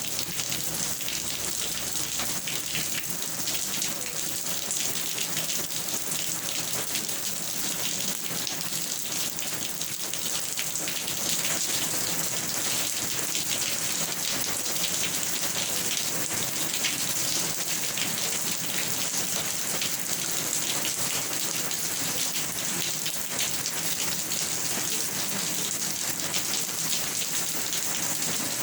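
Steady rain falling, a dense hiss of drops pattering on a surface, getting a little heavier about a third of the way in.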